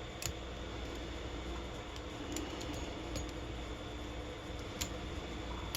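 Scattered small metallic clicks and ticks of a hook pick setting pins inside a Federal 50 mm brass padlock, over a steady low hum.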